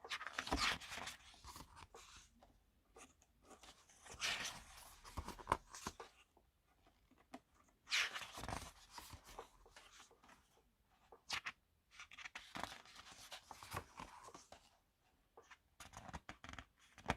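Pages of a K-pop album photobook being turned by hand: paper swishes and rustles with small taps, coming several times.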